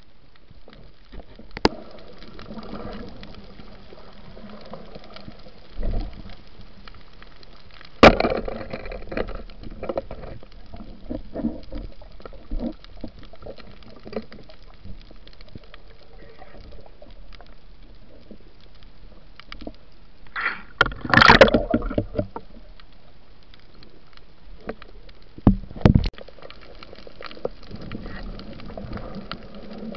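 Water noise picked up by a camera underwater, a steady muffled hiss. Sharp knocks come about 2, 8 and 26 seconds in, and a louder rush of noise lasts a second or so just past 20 seconds.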